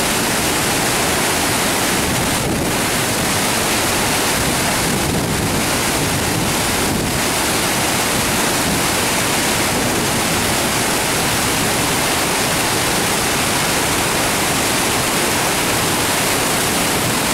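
Floodwater pouring over a concrete dam spillway: a loud, steady rush of falling water.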